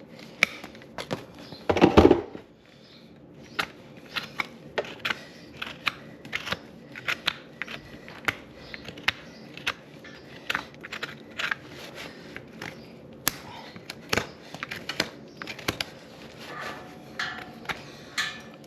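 Irregular sharp clicks and snips of farrier's tools cutting into a horse's hoof, several a second, with a heavier thump about two seconds in.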